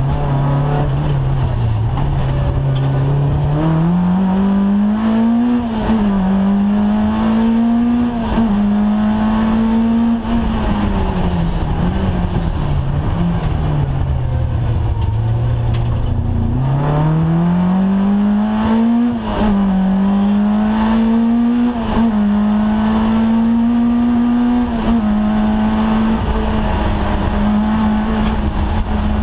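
Peugeot 205 GTI Mi16's 16-valve four-cylinder engine heard from inside the rally car's cabin under hard driving. It revs up through quick upshifts, winds slowly down through the middle as the car slows, then pulls hard up through two more upshifts and holds high revs near the end.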